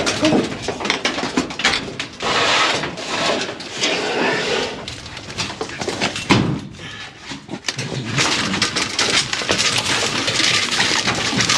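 A dog rooting and digging in dirt and loose wood debris, with scratching, scraping and many short knocks of wood.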